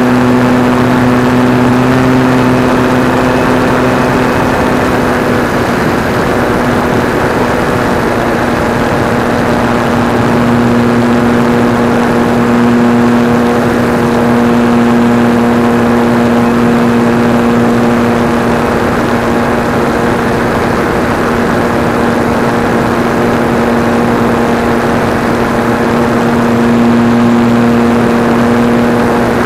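Sig Senior RC model airplane's motor and propeller running steadily at cruise power, heard from the onboard camera with wind rushing past.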